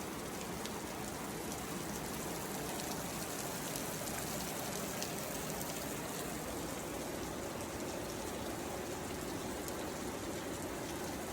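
Steady rushing water noise, even and unbroken, with a few faint ticks.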